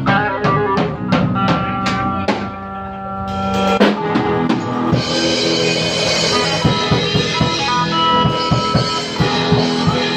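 Live band playing without vocals: electric guitar over a drum kit, with hand drums. Evenly spaced drum hits come first, then a steady cymbal wash and busier drumming from about five seconds in.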